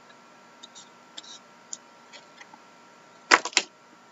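Trading cards and plastic card holders being handled on a table: faint scattered ticks and taps, then two loud sharp clacks a moment apart about three and a half seconds in.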